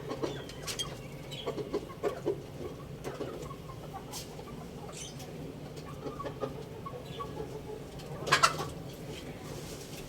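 Chickens clucking in short, scattered calls, with one brief louder burst about eight seconds in.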